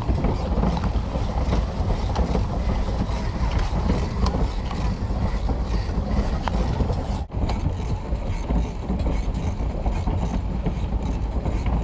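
Pedal boat's foot-driven paddle wheel and drive running, a steady churning with a light mechanical rattle, mixed with wind on the microphone; the sound drops out for an instant about seven seconds in.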